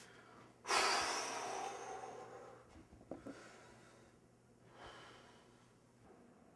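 A person's long, breathy exhale that starts suddenly about a second in and fades away over a couple of seconds, followed by a few light clicks and a second, fainter breath.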